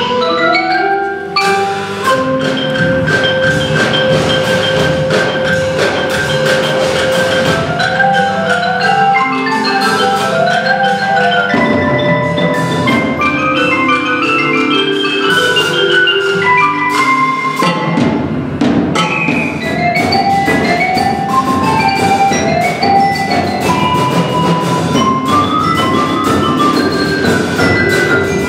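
Percussion ensemble playing a piece led by marimbas and other mallet keyboards: quick runs of short notes stepping up and down over a steady ticking pulse of lighter percussion.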